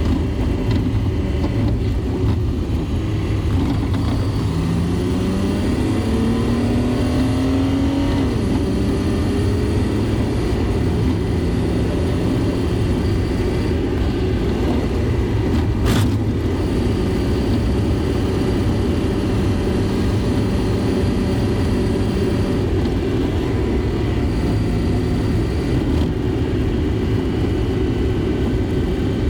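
Mack Granite dump truck's diesel engine running as it drives, heard from inside the cab with road noise; a few seconds in the engine pitch rises as the truck accelerates, then it runs steady. A single sharp click about halfway through.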